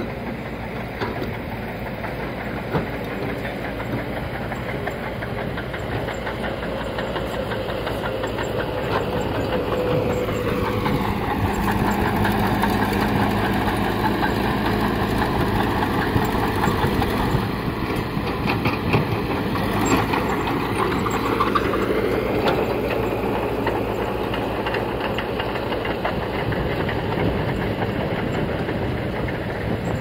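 Diesel engine of a Cat E120B hydraulic excavator running steadily under digging load, with metallic rattle and clank from the machine. For roughly the middle third, a small crawler bulldozer's diesel engine and tracks are heard instead, a little louder, as it pushes soil.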